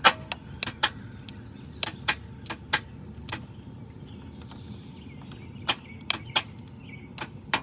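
Irregular sharp clicks and taps, about fifteen, the loudest right at the start, as bare jumper-wire ends are touched against the starter-relay socket terminals in a Jeep Grand Cherokee's fuse box. The starter does not crank.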